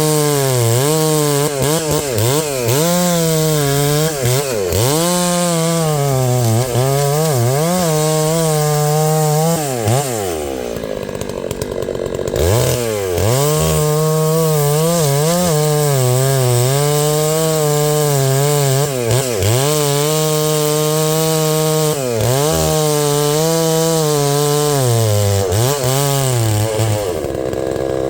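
Large two-stroke chainsaw cutting through a maple log. Its revs dip and recover again and again as the chain bites, ease off briefly about ten seconds in, then pick up again. Near the end the engine winds down and stops: the saw has run out of fuel.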